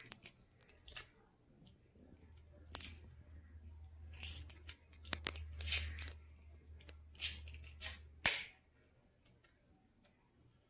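Packaging from an AirPods box being handled and torn open: a series of short rustling, tearing sounds, about eight of them, that stop about two seconds before the end.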